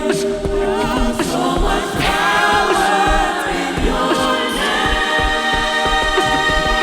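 Vocal group singing a worship song in harmony, several sustained voices with vibrato, over low musical accompaniment.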